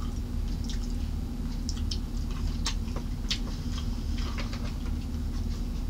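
Close-miked eating sounds of a person chewing waffle fries: scattered small crunches and wet mouth clicks over a steady low hum.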